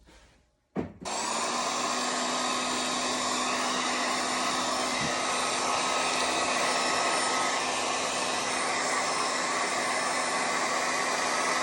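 Hair dryer switched on with a click about a second in, then running steadily at a constant speed.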